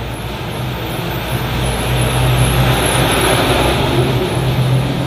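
A motor vehicle's engine running, a steady low rumble that grows louder over the first two seconds and then holds.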